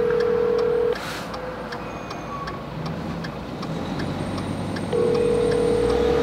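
Phone ringback tone through a smartphone's loudspeaker: a steady tone that stops about a second in, then after a four-second gap starts again near the end, as an outgoing call rings and is not yet picked up. Faint regular clicks and a low traffic rumble underneath.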